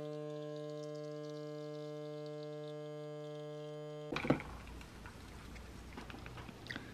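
An illy capsule espresso machine's pump hums steadily as it brews a shot, then cuts off abruptly about four seconds in. A few light knocks follow.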